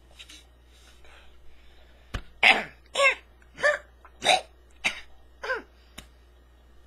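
A man coughing in a fit, about six hard coughs a little over half a second apart, after faint sounds in the first two seconds.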